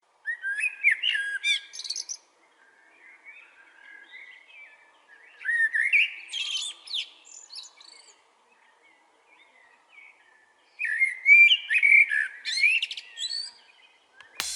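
Songbirds singing: three bouts of quick, varied, warbling notes, about four seconds apart, with softer twittering in between.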